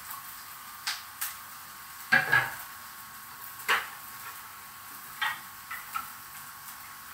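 Garlic and ginger sizzling steadily in hot oil in a wok. Over it come a series of sharp metallic clicks and knocks, the loudest a double knock about two seconds in, as a tin of stewed pork is worked open at the counter.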